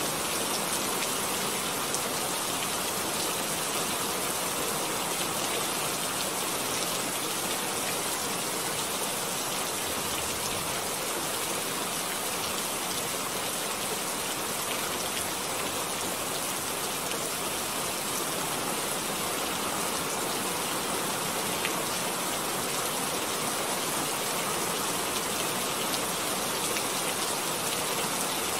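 Steady, unchanging rain-like hiss that runs on evenly without breaks.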